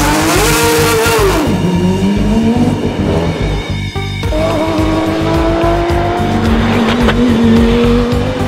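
Racing car engines revving up and down, then one engine climbing slowly in pitch as it accelerates, over background music with a steady beat. The sound drops out briefly about four seconds in.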